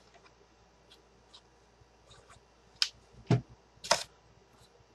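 Handling clicks and taps as stiff cardstock petals and glue are worked on a craft surface: a few faint ticks, then three short louder taps in the second half, the middle one a dull thump.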